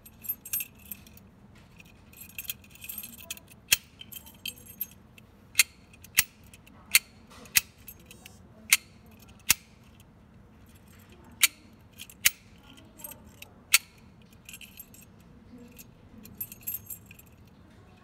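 Keys jangling on a ring, then about ten sharp metallic clicks as a key turns in the cylinder of a hook-bolt mortise lock for a sliding door, throwing and retracting the hook bolt. More key jangling near the end.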